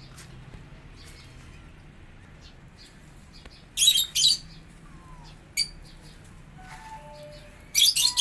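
Caged lovebirds giving loud, shrill chirping calls: a quick pair near the middle, a single short chirp a little later, and another pair at the end.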